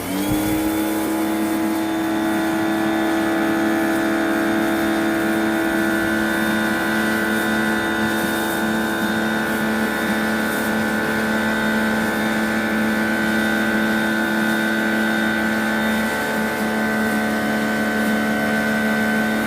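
Titan electric pressure washer starting up and running steadily: an even motor-and-pump hum with a high whine over it. It is fed through a leaking hose that does not give it full water supply.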